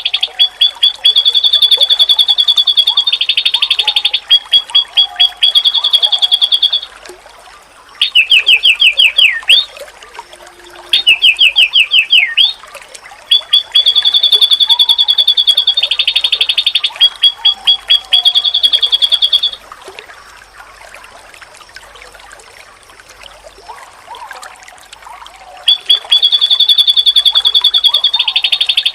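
White-eye (pleci) singing in long, fast trills, high-pitched and pulsing, in phrases a few seconds long with short breaks between them. There is a longer pause from about two-thirds of the way through until near the end.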